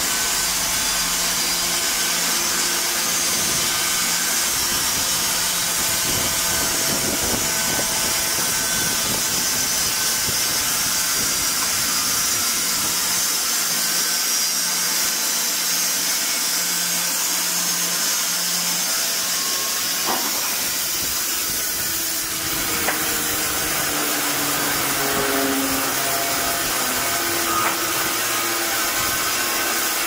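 Triumph 900 Premium horizontal band sawmill running, its electric motor driving the band blade as it saws along a squared log with a steady hiss. A faint tone slowly falls in pitch in the second half.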